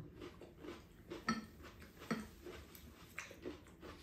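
Quiet eating at a table: chopsticks and spoons clicking and tapping against ceramic bowls. There is a scatter of light taps, with the sharpest about one and two seconds in.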